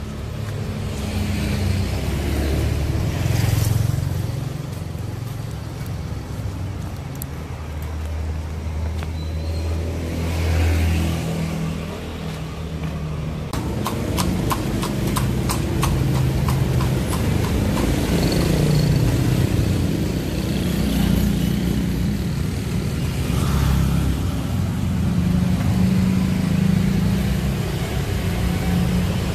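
Street traffic: motor scooters and cars passing close by one after another, engines humming, with several louder passes. A rapid run of clicks lasts about three seconds near the middle.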